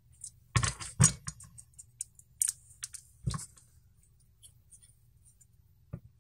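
Carbon-fibre quadcopter frame parts being handled while small sticky feet are peeled and pressed onto an arm: a few sharp clicks about half a second and one second in and again about three seconds in, with scattered faint ticks and scratches between.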